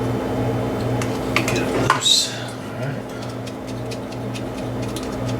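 A wrench clinking and scraping against metal while loosening a small nut, with a few sharp clicks and one louder clink about two seconds in, then faint light ticking, over a steady low hum.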